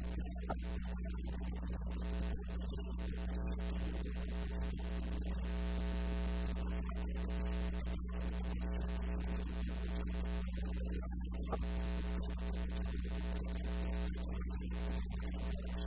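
Steady electrical mains hum: a constant low drone with a buzzing ladder of overtones.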